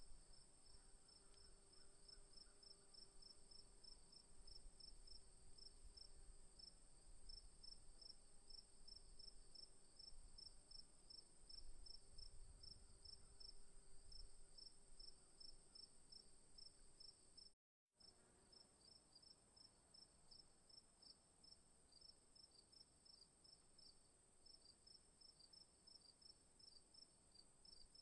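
Faint insect chorus of crickets: a steady high-pitched trill under quick, regular chirps about five a second. The sound drops out briefly about eighteen seconds in.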